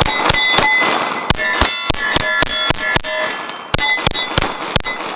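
Glock 45 9mm pistol fired in three quick strings of about fourteen shots, with a metallic ring hanging after the shots. The pistol cycles each round without a stoppage while fed from a standard Glock magazine.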